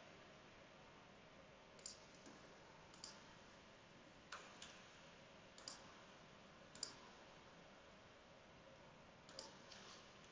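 Faint computer mouse clicks and key presses, about eight short sharp clicks spaced irregularly over near-silent room tone.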